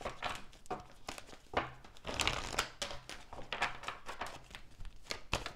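A deck of tarot cards being shuffled by hand: a run of quick, irregular papery slaps and rustles as the cards slide against each other.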